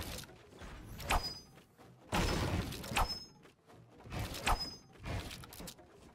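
A series of sharp bangs, about one every second or so, with a short rush of noise about two seconds in.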